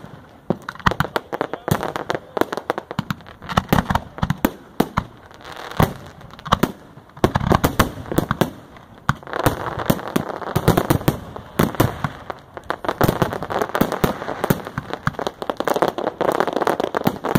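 Aerial fireworks shells bursting in rapid, overlapping succession, many sharp bangs, with stretches of dense crackling between them.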